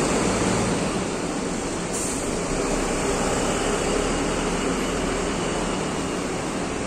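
Coach bus engine running as the bus pulls away, its sound slowly fading as it moves off. A short hiss comes about two seconds in.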